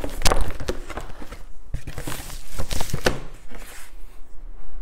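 Cardboard box and packaging being handled: flaps and inner wrapping rustling and crinkling, with light knocks near the start and a longer rustle about two seconds in.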